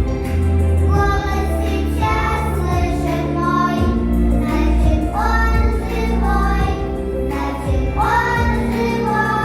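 A song with a child singing over a backing track with a steady bass.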